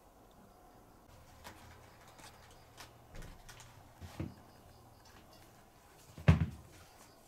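A cat clawing at a sisal-rope scratching post, a run of short scratchy scrapes and taps, followed by a single loud thump about six seconds in.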